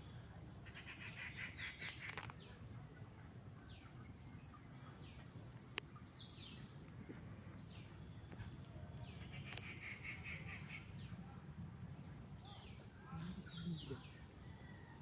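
Birds calling outdoors: a high call that slides downward, repeated every second or two, with bursts of quicker chirping, over a low steady background rumble. A single sharp click sounds about six seconds in.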